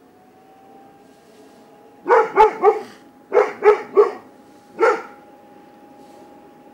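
A dog barking: two quick runs of three barks, then a single bark.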